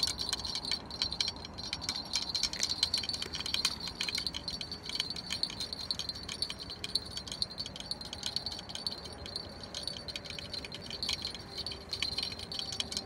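Small bite bell on a carp rod's tip jingling rapidly and irregularly as the bent rod is pulled by a hooked fish.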